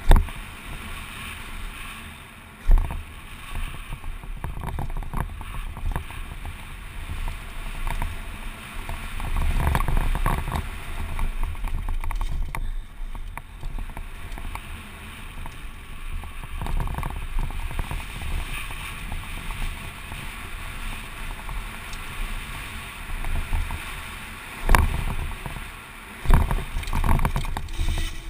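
Wind rush and rumble on a rider-worn action camera as a Giant Glory downhill mountain bike rolls down a rough dirt trail, its tyres and frame rattling over the bumps. Sharp knocks from hits come right at the start, about three seconds in and twice near the end.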